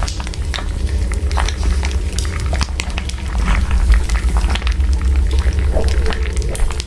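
Steady low hum with irregular crackling and clicking over it, like a fire or boiling background track.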